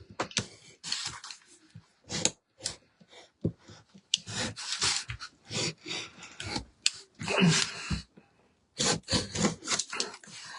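Hand tool scraping and prying at the seam between a metal insert and a wooden craft surface: a run of irregular scrapes and sharp clicks as the metal won't budge.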